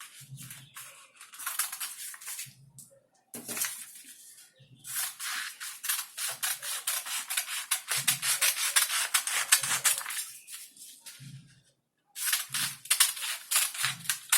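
Scissors cutting through soft voile fabric: a rapid run of crisp snips, broken by a few short pauses.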